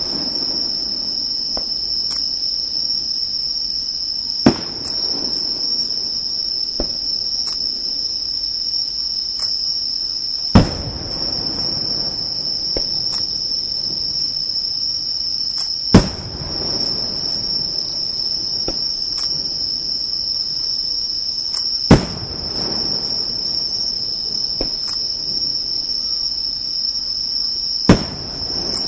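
Aerial firework shells bursting one at a time, five sharp booms about six seconds apart, each trailing off in a rumbling echo. Under them runs a steady high-pitched chorus of insects.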